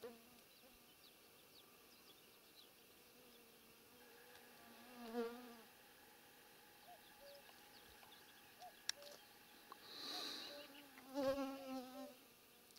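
A flying insect buzzing, twice: once about five seconds in and again near the end, its pitch wavering up and down as it moves.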